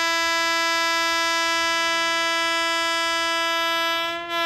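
Vande Bharat Express train's horn sounding one long, steady note that stops near the end.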